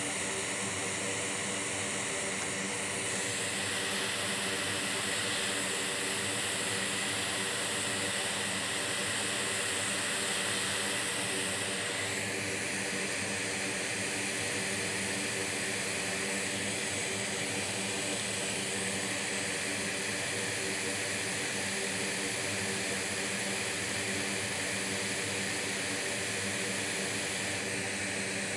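Hot air rework station blowing steadily: an even rush of air with a fan hum underneath, its tone shifting at about three seconds and again at about twelve seconds.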